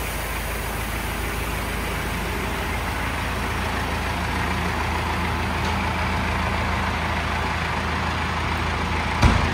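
John Deere 1640's three-cylinder diesel engine running steadily under a steady hiss of grain sliding off the tipped trailer. There is a single low thump near the end.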